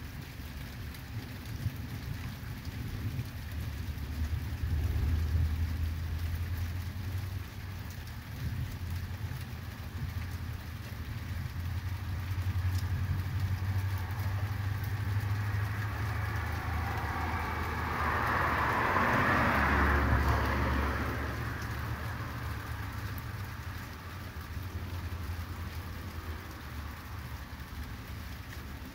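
Thunderstorm: steady rain with long, low rumbling swells of distant thunder coming and going, and a louder swell of noise about two-thirds of the way through.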